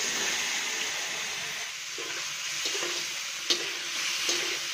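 Cubed paneer sizzling as it fries in hot ghee in a kadai, with a metal spatula clicking against the pan a few times in the second half.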